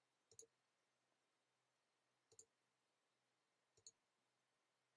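Three faint computer mouse clicks, a second and a half to two seconds apart, in near silence.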